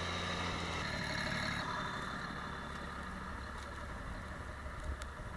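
John Deere tractor's diesel engine running steadily; its sound changes about a second in and grows duller shortly after. A short knock near the end.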